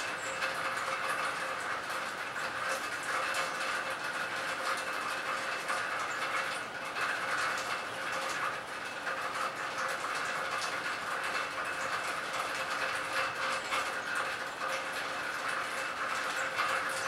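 Steady rain falling on a lake: a dense, even patter of countless small drops hitting the water.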